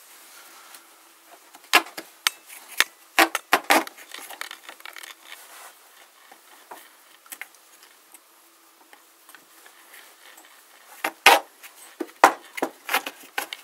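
Small wooden slices knocking and clicking against each other and against a metal threaded rod as they are slid down onto it. The clicks come in a bunch about two seconds in and again near the end, with a quieter stretch between.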